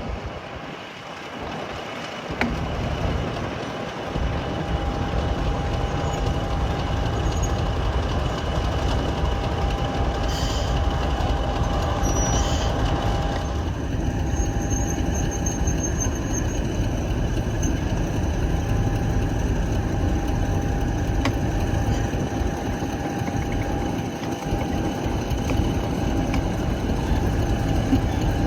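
Train running with a steady low rumble and a constant high whine.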